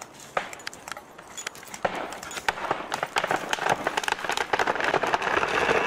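A felled tree going over: wood and branches snapping in a rapid crackle that starts sparse and grows denser and louder over the last four seconds.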